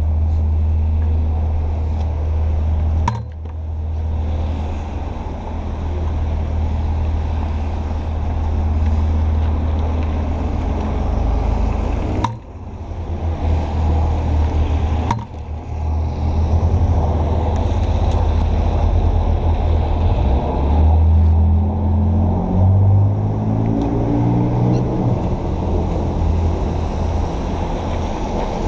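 City street traffic with a steady low engine rumble from a vehicle close by. A little past two-thirds in, an engine's pitch rises several times as a vehicle pulls away and accelerates.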